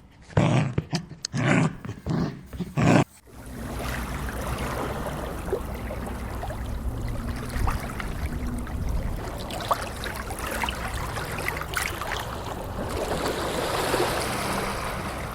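A dog barking four times in quick succession, then a steady rush of flowing water with a low rumble underneath.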